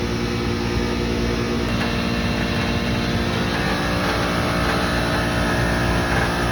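Commercial HVAC unit's refrigeration compressor running steadily: a constant machine hum with several steady tones. The tones shift about a second and a half in, and a higher whine joins about three and a half seconds in. The system is running slightly low on refrigerant charge.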